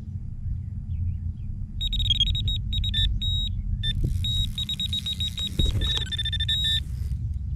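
Electronic carp bite alarm sounding a fast, near-continuous string of high beeps for about five seconds as a carp runs and pulls line from the rod. A steady low rumble lies underneath.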